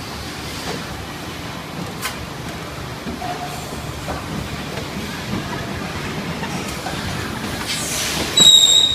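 Thermoform packaging machine running steadily. There is a click about two seconds in, then a rising hiss near the end, followed by a short, loud high-pitched tone.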